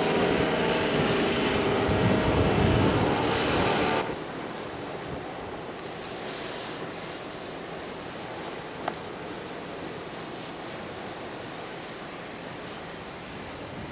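Snowstorm wind blowing on the microphone as a steady rushing hiss. For the first four seconds a louder motor hum with steady tones runs over it, then cuts off abruptly. A single click comes about nine seconds in.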